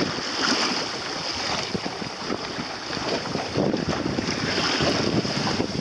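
Wind buffeting the microphone over water splashing and rushing against the hull of a small sailboat under way in a light chop.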